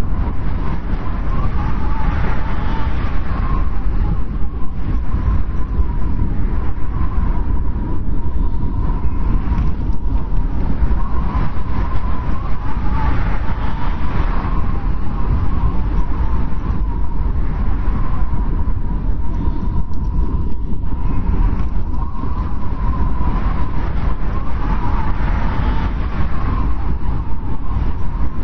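Snowstorm wind blowing hard, with a deep steady rumble under a whistling howl that swells and fades in slow gusts every ten seconds or so.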